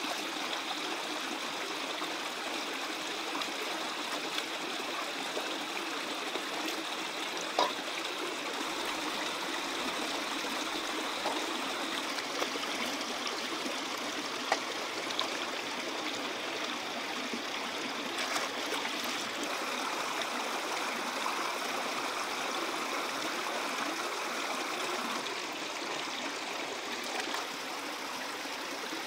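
Shallow stream running over rocks, a steady trickling water sound, with hands splashing in the water as produce is washed. A few brief sharp clicks stand out.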